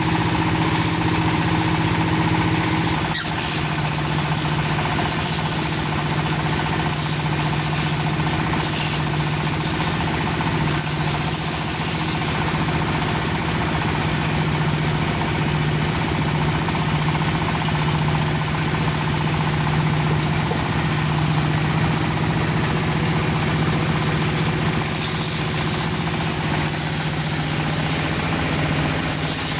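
Dowel machine for turning broom handles running steadily with a constant low hum. About three seconds in, the hum drops slightly in pitch and a high hiss joins it.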